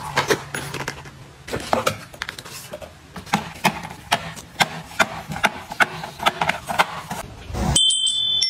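Boxed drink cartons being lifted out of a cardboard box and set down one after another on a cart shelf: a quick series of light knocks and taps, about two or three a second, with cardboard rustling.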